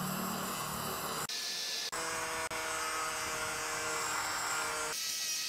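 Electric angle grinder running with its disc pressed against a rusty steel bar, grinding the rust off: a steady motor whine over a gritty hiss. The sound breaks off abruptly a few times and comes back at a slightly different pitch.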